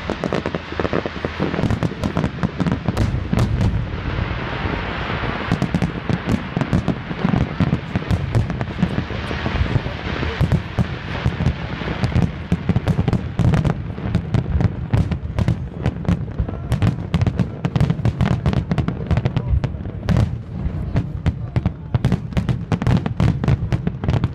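Aerial fireworks display going off: a continuous string of shell bursts and crackling, with the bangs coming closer together through the second half.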